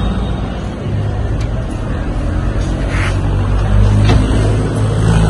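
Motor vehicle engine running, a steady low hum that grows louder about a second in and is loudest around four seconds.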